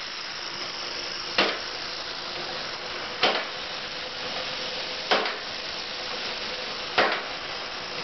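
Model trip-hammer pile driver's hammer falling onto the pile four times, evenly, about every two seconds, over the steady hiss of its Stuart No. 10 horizontal engine running on compressed air at about 40 psi.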